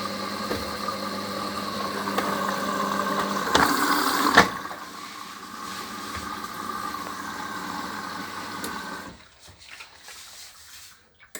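Hoover HLW585DC washer dryer taking in water: a steady rush of water with a hum. The flow drops sharply about four and a half seconds in, runs on more softly and goes quiet about nine seconds in.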